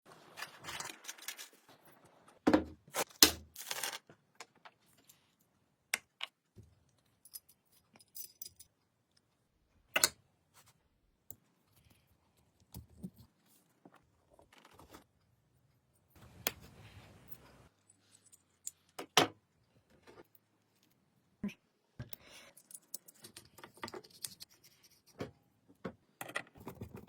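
Intermittent clicks, clinks and knocks of hand tools and small metal parts being handled, with quiet gaps between and a few sharper strikes.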